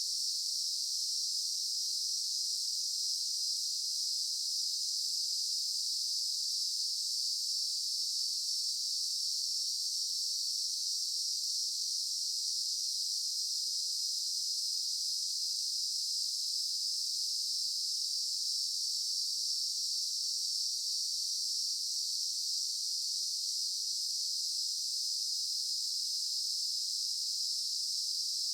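Daytime insect chorus: a steady, unbroken high-pitched buzzing drone of many insects.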